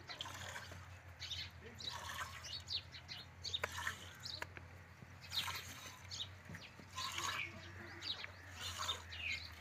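Cow being hand-milked: short streams of milk squirting into a steel pail, one squirt every half second to a second in an uneven rhythm.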